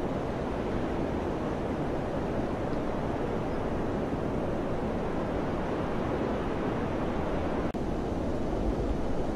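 Steady wind rushing with a deep low rumble and no distinct gusts. The sound drops out for an instant about three-quarters of the way through, and the low rumble swells near the end.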